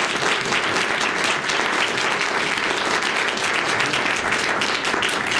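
Audience applauding steadily: dense, sustained clapping from many hands.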